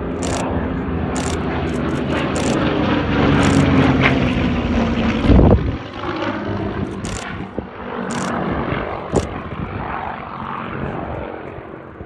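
Propeller-driven WWII fighter's piston engine passing low by: the engine drone falls in pitch as it goes past, loudest about five seconds in, then fades away with a fluttering, wavering sound. Scattered sharp clicks sound over it.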